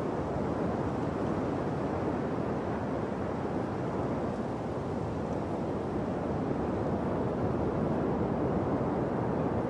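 Steady rushing noise from a moving bike ride on a gravel path: wind buffeting the microphone, mixed with tyres rolling over gravel, with no break or change.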